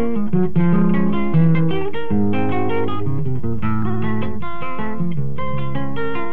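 Solo classical (nylon-string) guitar playing a choro: a quick plucked melody over a moving bass line.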